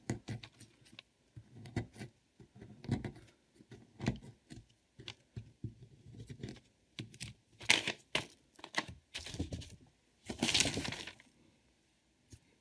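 Scraping and chipping at a block of plaster with a digging tool: irregular short scratches and knocks, with a longer stretch of scraping about ten seconds in.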